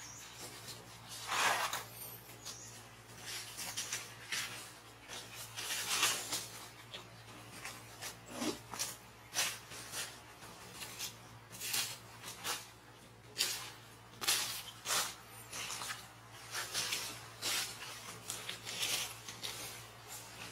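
Dry leaf litter rustling and crackling in short spells, one every second or so, as monkeys move over it, with a faint steady low hum underneath.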